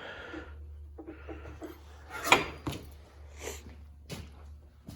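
A few sharp metal clunks and clicks from the tractor's pedals and linkage being worked, the loudest about two seconds in, over a steady low hum.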